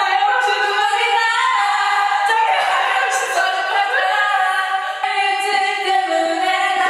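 Several young women singing loudly together with held, high notes and no instrumental backing.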